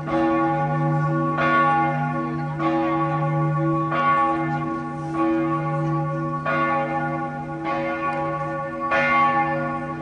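Church bells ringing: a deep, sustained hum with fresh strikes about every second and a quarter, the tones overlapping and ringing on between strikes.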